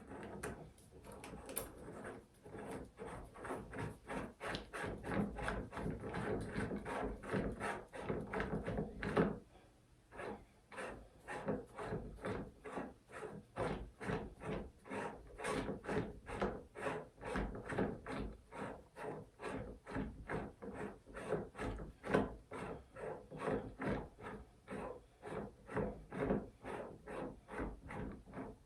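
Hornady powder measure being screwed down by hand in the reloading press's threaded station. The threads rub and click in a steady rhythm, about two to three times a second, as the measure is lowered so the case-activated linkage can travel all the way up.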